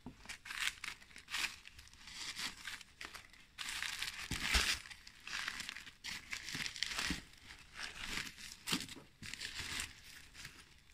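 Paper and fabric packaging rustling and crinkling under hands in irregular bursts as a handbag is drawn out of its dust bag and paper wrapping in a box.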